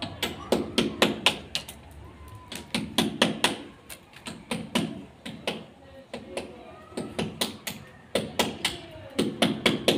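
Hammer blows in quick runs of sharp strikes, three to six blows at a time with short pauses between runs, while an iron window grille is being fixed into a masonry wall.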